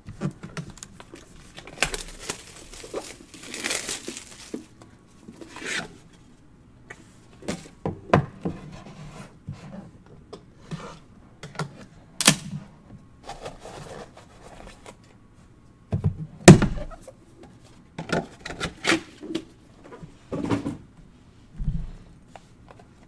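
A 2019 Panini National Treasures football box being handled and opened by hand: cardboard sliding and scraping, with a string of irregular knocks and thuds as it is pushed and set down on a wooden desk. The loudest thud comes about two-thirds of the way through.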